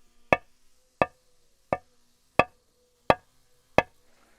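A metal hammer striking a concrete slab in slow, even blows, six sharp knocks about 0.7 seconds apart.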